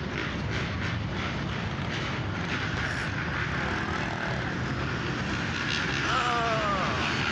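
Many dirt bike engines running and revving together in a steady din, with voices mixed in; about six seconds in, a pitch falls briefly.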